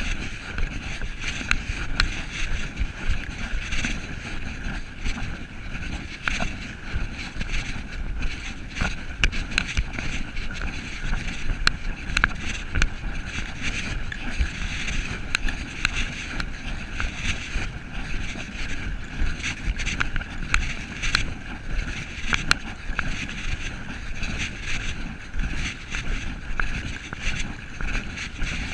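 Walking noise picked up by a body-worn camera: fabric rubbing over the microphone, footsteps through brush, leaves and snow, and wind on the microphone, a steady rustling haze with many small clicks.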